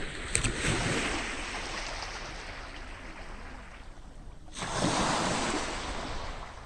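Sea waves washing onto a beach. One wave swells just after the start and fades, then another comes in suddenly about four and a half seconds in and ebbs away.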